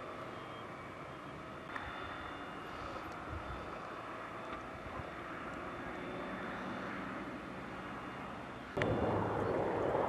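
Steady drone of a distant firefighting aircraft's engine over a forest fire, carrying a few steady tones. About nine seconds in, it gives way suddenly to louder, rougher noise.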